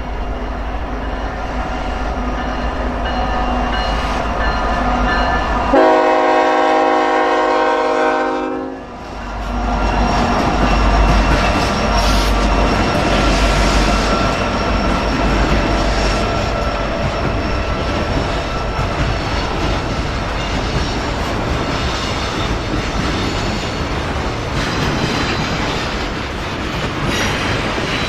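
Diesel freight trains passing at a level crossing: locomotive and wheels rumbling and clattering over the rails. About six seconds in, a locomotive air horn sounds one steady chord for about three seconds.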